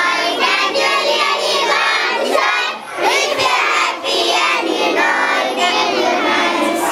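A group of children singing together: many young voices at once, with a short dip in level about three seconds in.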